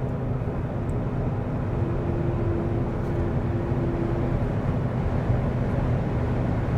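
Cabin noise of a Li Auto L7 at highway speed: steady road and wind rumble with a faint steady hum. For a couple of seconds in the middle a second, slightly higher hum note joins it. This is the wind-induced resonance hum being tracked down, which is now faint.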